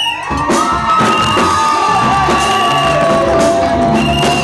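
Loud music with a crowd cheering and whooping, long high-pitched cries held over the music.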